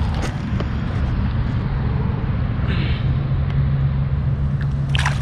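A steady low rumble runs throughout. Brief splashing of water comes as a small bass is lowered into a creek and let go.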